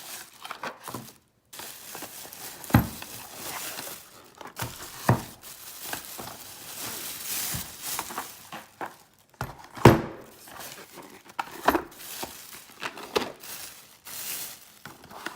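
Packaging crinkling as cardboard boxes of ammunition are handled, with scattered sharp knocks. The loudest knocks come about three, five and ten seconds in.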